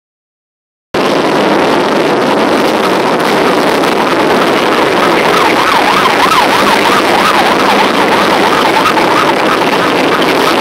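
Parade motorcycles riding slowly past, their engines running in a dense, loud rumble that starts about a second in. About halfway through, a siren joins in, yelping quickly up and down about twice a second for several seconds.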